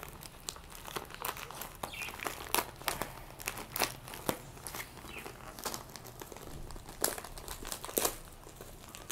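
Brown paper courier mailer being torn open and handled: an uneven run of paper crinkles and crackles, with a handful of sharper crackles scattered through.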